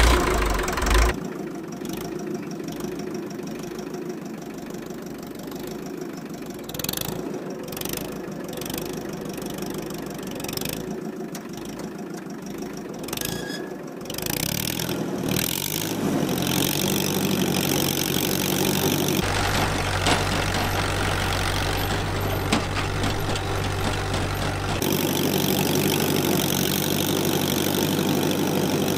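Fiat 352C Montagna crawler tractor's 1900 cc four-cylinder glow-plug engine catching on the starter with a loud burst, then idling steadily. About halfway in it runs louder and deeper as the crawler moves off on its tracks.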